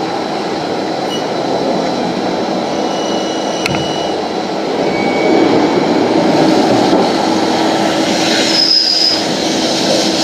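CNC lathe machining a metal part: a steady whirring, grinding noise with a constant low hum. There is a sharp click a little over three and a half seconds in and a brief high squeal near the end.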